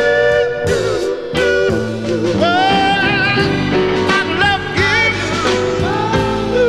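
1960s soul record: a male singer holds and trills long notes with a heavy, wavering vibrato over a band with guitar.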